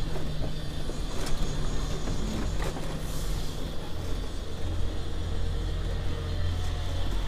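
Diesel engine of an HGV lorry running under way, heard from inside the cab as the truck takes a slow wide turn. It is a steady low hum, and about four seconds in the engine note drops to a deeper drone.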